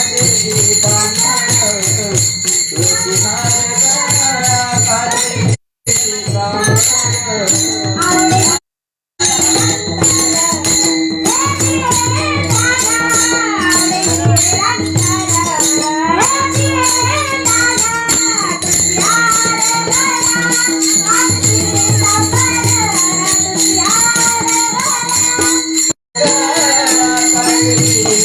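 Marathi kirtan panchapadi singing in a woman's voice with ornamented, gliding melody, accompanied by small hand cymbals (taal) clashing continuously and a drum beating a steady rhythm. The sound cuts out abruptly three times: briefly about 6 seconds in, for about half a second near 9 seconds, and briefly near the end.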